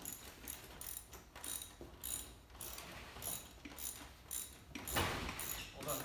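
Ratchet wrench clicking in short repeated strokes as bolts are tightened on the front end of a small electric ATV. About five seconds in there is a longer, louder clatter.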